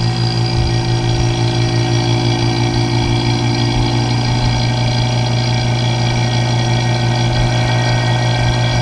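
Electric vacuum pump running with a steady hum, pulling the air out of a vacuum chamber to draw air bubbles and moisture out of melted soft plastic.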